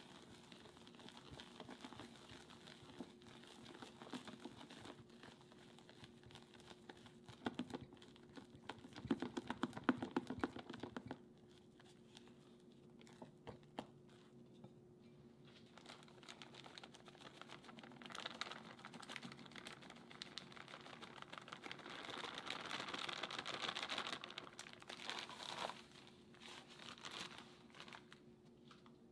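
Silicone spatula stirring sticky melted marshmallow in a glass bowl: a soft run of small sticky clicks and scrapes, louder for a couple of seconds about a third of the way in and again over several seconds in the last third.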